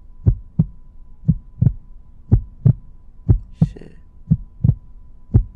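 Heartbeat sound effect: a double lub-dub thump about once a second, steady in tempo, with a faint steady high tone behind it.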